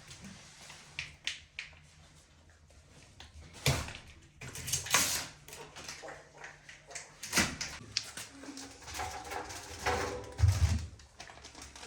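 Unpacking noises: scattered clicks and knocks with brief rustling of packaging as a new washing machine's accessories are handled, a sharper knock past the middle and a low thump near the end.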